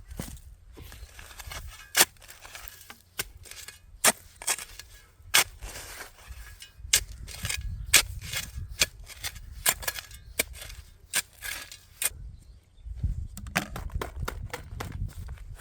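Wood campfire crackling, with sharp, irregular pops from the burning logs, some loud and many small, over a low rumble.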